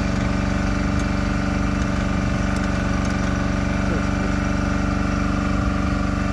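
An engine running steadily at a constant speed, a continuous even hum that does not rise or fall.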